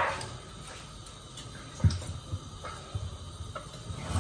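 Kitchen knife cutting a peeled raw potato and knocking on a wooden cutting board: a sharp knock at the start, a firmer one about two seconds in, then a few lighter taps.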